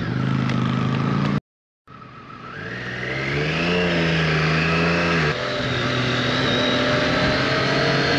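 Motorcycle engine heard from on the bike, accelerating: after a brief dropout to silence about one and a half seconds in, the engine note rises over a second or so, then holds steady.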